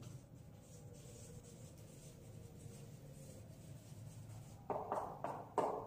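Whiteboard marker writing a word on a whiteboard, a faint rubbing of the tip across the board. Two louder, short sounds come near the end.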